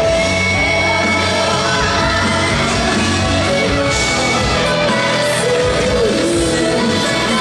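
A woman singing with full instrumental accompaniment, her voice gliding between sustained notes over a steady bass.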